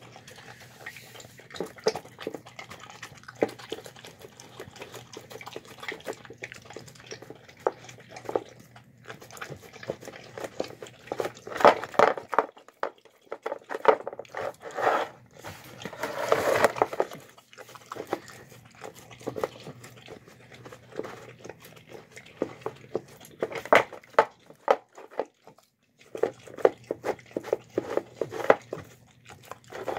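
A dog eating chicken noodles from a plastic bowl: rapid, irregular chewing, smacking and slurping, with louder bursts of gulping around the middle and again near the end as it licks the nearly empty bowl.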